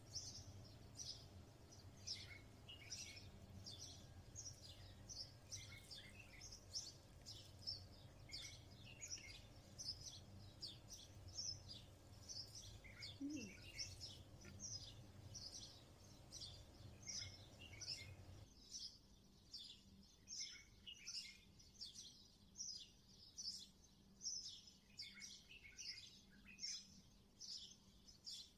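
Faint, rapid chirping of small birds, many short calls repeating throughout, over a low hum that stops about two-thirds of the way through.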